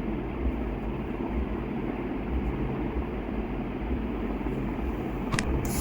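Steady room noise, a low hum under a hiss, with a sharp click or two near the end.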